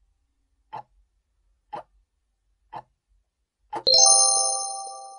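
Countdown-timer sound effect ticking about once a second, four ticks, then near the end a bright chime rings out and slowly fades, marking the end of the countdown.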